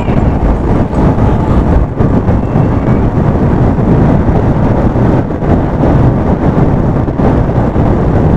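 Loud, steady low rumble of wind buffeting a helmet-mounted action camera's external microphone, the mic wrapped in cotton and sellotape to damp wind noise.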